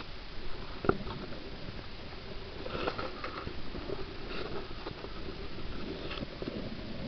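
Muffled underwater noise heard through a camera's waterproof housing, with one sharp knock about a second in and a few lighter clicks and taps later, as water plants brush and bump against the housing.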